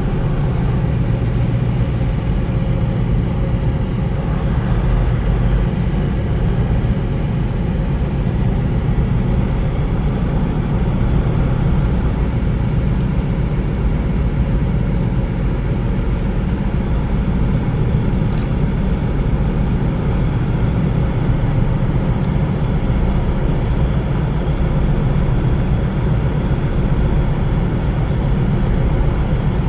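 Steady low drone of a large ship's diesel machinery, a layered hum of several even tones that holds the same pitch and level throughout.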